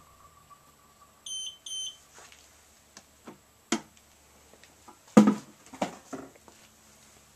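Elegoo Mercury Plus wash and cure station beeping twice about a second in as its 30-second UV curing cycle ends, with a faint steady hum from the unit that stops soon after. Then a few clacks and knocks, the loudest about five seconds in, as the plastic cover is handled and lifted off.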